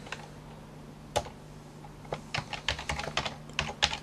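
Computer keyboard keystrokes: a single key press about a second in, as a sudo command is entered, then a run of quick keystrokes from about two seconds in as the password is typed at the prompt. A faint steady hum runs underneath.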